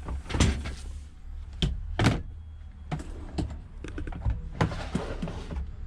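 A series of separate clunks and knocks, about seven, as a power tool and hard plastic toolbox parts are handled and set down.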